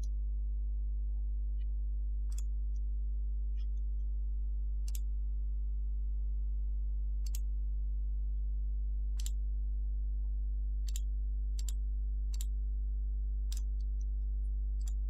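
Computer mouse button clicking about nine times, a second or two apart, as the pointer works through Windows menus and windows. A steady low electrical hum runs under the clicks.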